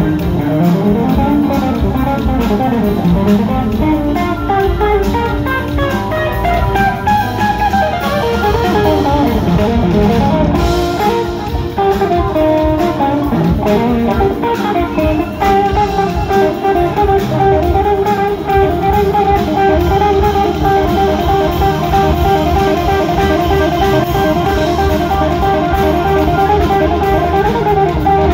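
Live rock band with an electric guitar solo out front over bass and drums. In the first half the guitar plays winding runs with bent notes. From about halfway it settles into a fast, evenly repeated figure.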